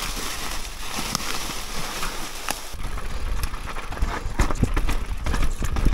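Mountain bike rolling fast downhill, its tyres running over dry leaves and then gravel and dirt, with the bike rattling and knocking over bumps. A deeper rumble grows louder about three seconds in.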